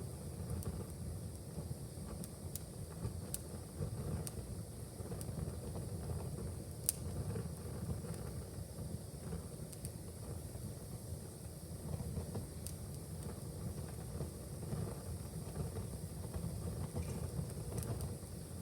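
Wood fire burning in a fireplace: a steady low rumble with scattered sharp crackles and pops, one louder pop about seven seconds in.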